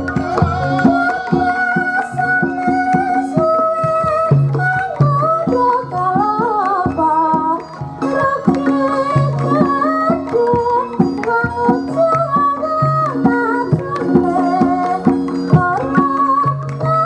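Javanese gamelan accompaniment for wayang kulit: sustained gong-chime tones repeating in a pattern, hand-drum strokes, and a female sinden voice singing a gliding, wavering melody over it.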